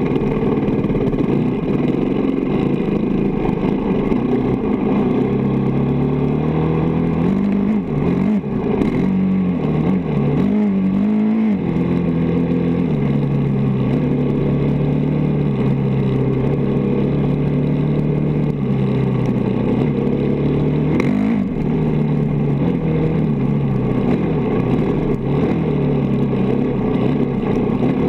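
Dirt bike engine running at riding speed, the revs climbing and dropping several times around eight to twelve seconds in, then settling to a steady lower note.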